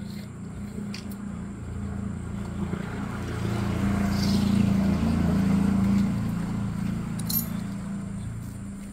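A motor vehicle's engine passing by, growing louder to a peak midway and then fading away.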